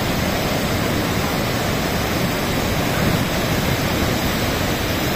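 Floodwater swollen by heavy rain rushing and churning down a river channel past a dam, a loud, steady rushing of water.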